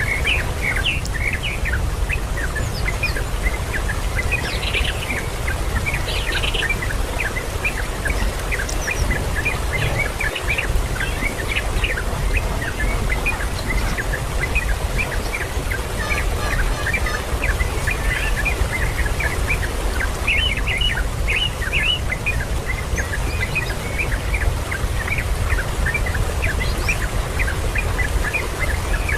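Birds chirping: many short, quick chirps on and off, over a steady low rumble.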